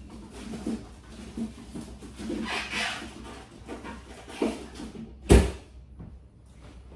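Household handling sounds: a run of small knocks and rustles, with one loud sharp knock a little over five seconds in, like a cupboard or drawer shutting.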